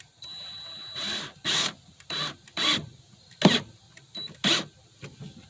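Wood screws being turned into a wooden drawer rail: a brief high steady whine near the start, then six short rasping strokes as the screws grind into the wood. The screw heads are not seating flush.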